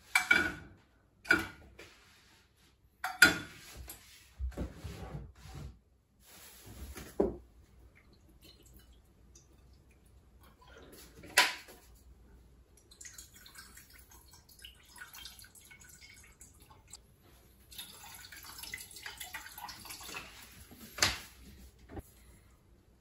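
Knocks and clinks of a metal saucepan and seasoning bottles being handled on a gas stove, then soy sauce and other seasonings being poured and trickling into water in the saucepan. One sharp knock about eleven seconds in, and another near the end.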